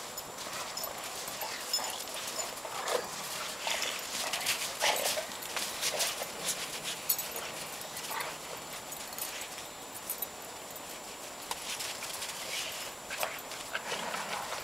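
Dogs romping in snow: paws crunching and scuffing the snow in quick, irregular footfalls, with a few short dog vocal sounds.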